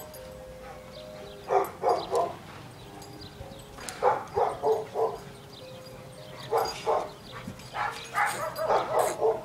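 Dog barking in short runs of several quick barks, four runs about two to three seconds apart.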